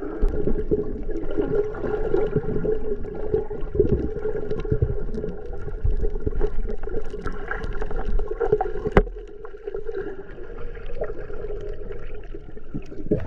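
Muffled underwater sound of bubbles and gurgling water around a submerged camera as snorkelers swim, with a steady low hum and one sharp knock about nine seconds in.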